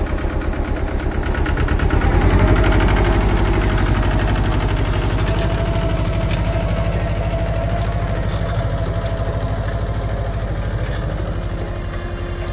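Mahindra JIVO 305DI compact tractor's diesel engine running under load while pulling a cultivator, with an even firing beat. It gets louder about two seconds in, then holds steady and slowly fades as the tractor moves away.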